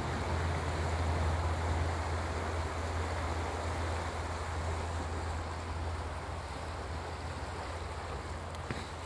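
Avoca River flowing over a shallow stony bed: a steady rush of water, under a steady low rumble.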